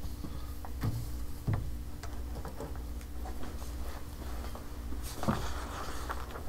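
Quiet meeting-room tone: a steady low hum under scattered light clicks and taps from people handling papers and laptops at a table, with a short rustle about five seconds in.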